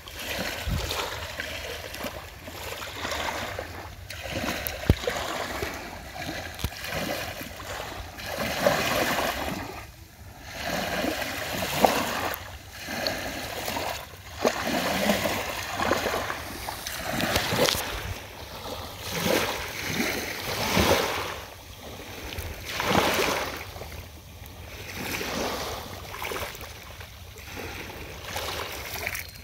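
Kayak paddle strokes in the water, a splash swelling and fading about once a second, with a few sharp knocks.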